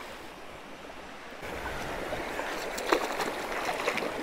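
Steady flowing river water, with a few short sharp splashes from about halfway in as a catfish on a rope stringer is lowered into the water.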